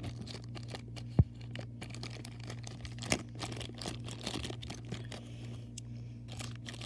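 Thin plastic blind bag crinkling and tearing as fingers work it open, a run of small crackles over a steady low hum. A sharp knock about a second in, and a smaller one around three seconds.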